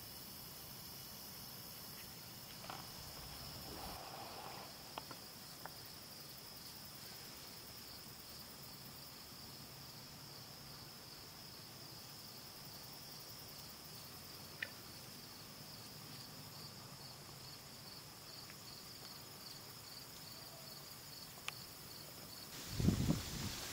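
Steady high insect chorus with a fast pulsing rhythm and a few faint clicks. Near the end there is a brief, louder burst of low noise.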